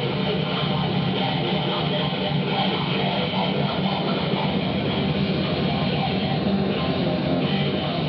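Harsh noise improvised on a computer in FL Studio through distortion and guitar-amp simulator plugins (CamelCrusher, Slayer 2): a steady, dense wall of distorted buzz with no beat or pauses, heaviest in a low drone.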